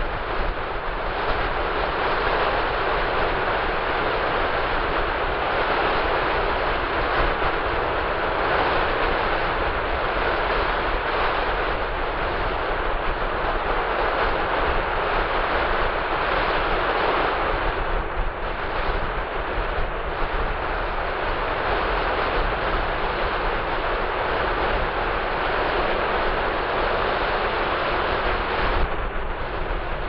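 Sea surf breaking and washing up a flat sandy beach: a steady, unbroken wash of wave noise, with wind rumbling on the microphone underneath.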